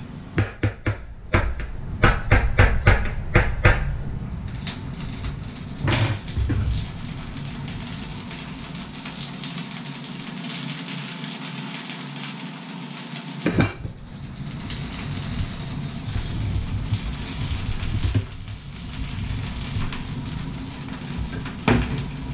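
Metal utensil clinking and scraping against a stainless steel bowl in a quick run of taps for the first few seconds, then a few scattered knocks. About halfway through, a steel pot lid clanks down onto a pot with a brief ring, and a steady hiss runs underneath.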